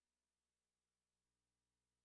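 Near silence: the audio track is effectively empty.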